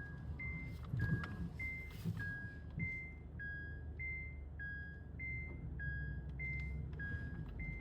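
Two steady notes alternating high and low, each held about half a second, repeating as an even two-tone chime about every 1.2 s. Underneath is a low steady rumble, with a few soft knocks in the first three seconds.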